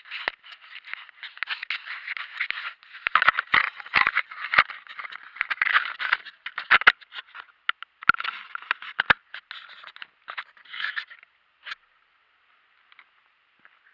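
Handling noise from a small camera being gripped and turned over, with fingers rubbing and scraping close to its microphone and sharp clicks among them. It stops at about 12 seconds, when the camera is set down, leaving only a faint steady hiss.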